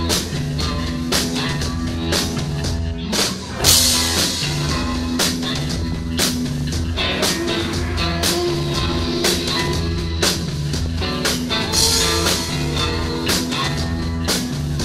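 Live rock band playing: drum kit beat, bass guitar and electric guitar, with a loud crash about four seconds in.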